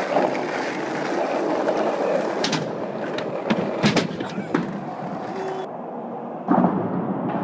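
Skateboard wheels rolling over pavement, with sharp clacks of the board about two and a half and four seconds in. A louder noise comes in near the end.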